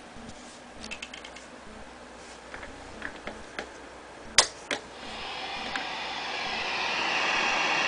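A few small clicks, then two sharp clicks about four seconds in, as the Exotic EP booster pedal is switched on into a Blackstar HT40 tube amp. After them a hiss of radio interference rises and swells through the amp, the sign of the amp picking up a radio station.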